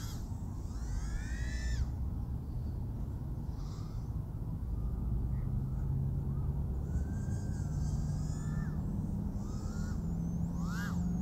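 Eachine TS130 micro racing quad's 1507 motors and 3-inch props whining, the pitch sweeping up and down in arcs as the throttle is opened and closed, over a low steady hum.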